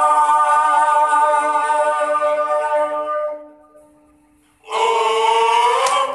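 Music: singing voices hold one long note that fades out about three seconds in. After a short, nearly silent gap, another held sung note comes in near the end.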